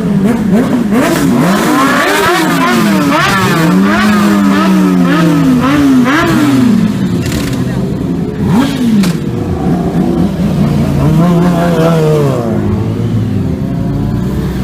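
Several superbike engines at high revs, accelerating hard through the gears: the pitch climbs and drops back at each upshift, over and over, with more than one bike overlapping. Near the end one bike's pitch falls away in a long glide.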